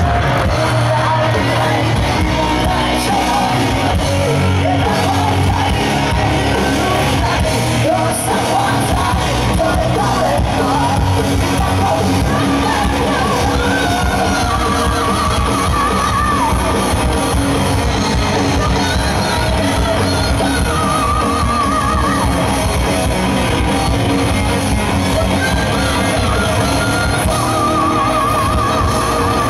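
Rock band playing live and loud, with a singer's voice over the full band; wavering held high notes come in several times in the second half.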